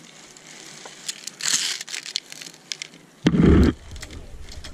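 Rustling and handling noise with scattered light clicks, a brief hiss about a second and a half in, and a short heavy thump a little over three seconds in.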